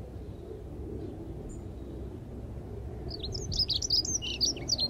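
A small songbird bursts into song about three seconds in: a fast, loud run of quick high notes lasting nearly two seconds, over a steady low outdoor rumble.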